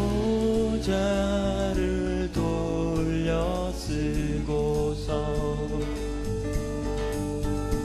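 A man singing a slow Korean song at the microphone, accompanied by strummed acoustic guitar and a Yamaha Motif XS8 keyboard over a steady bass.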